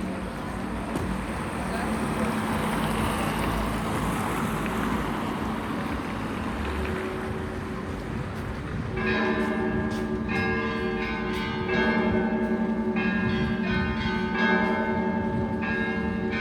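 Russian Orthodox church bells ringing (a zvon). For the first half the bells' lingering tones hang under a steady noisy wash. About nine seconds in, several bells begin striking in a rapid, overlapping pattern, small high bells over larger ones.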